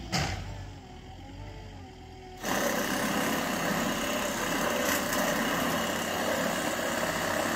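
A cordless drill-driven metal shear cutting a corrugated steel roofing panel: it starts about two and a half seconds in and runs on steadily, much louder than what came before. Before the cut, a motor hums with a pitch that rises and falls in waves, with a click just at the start.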